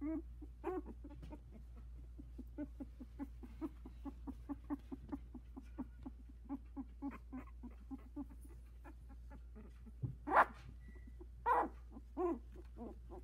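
Newborn Havanese puppy, about two weeks old, making short grunting squeaks in a steady run of about three a second as it crawls, then three louder, higher cries near the end.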